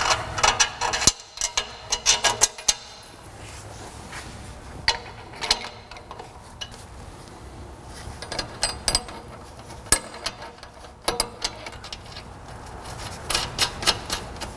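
Scattered metal clinks, knocks and scrapes as an electric exhaust cutout and its flange are handled and fitted against the exhaust pipe by gloved hands.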